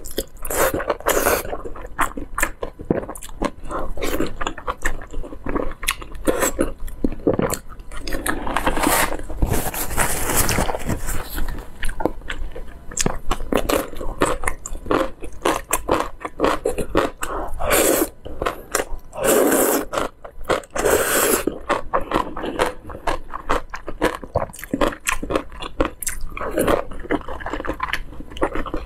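Close-miked eating sounds of noodles and dumplings: a noodle slurp at the start, then continual chewing with many small wet mouth clicks and smacks. There are several longer noisy slurps along the way.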